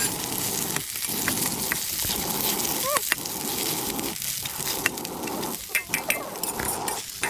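Twice-cooked pork stir-frying in a wok over a wood fire, a steady sizzle that dips briefly about once a second, with light metallic clicks.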